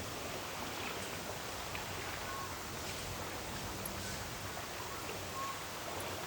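Steady wind noise on a night outdoors, with a few faint, brief high notes scattered through it.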